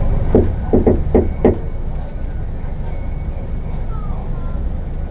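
About five quick knocks on a door in the first second and a half, over a steady low background rumble.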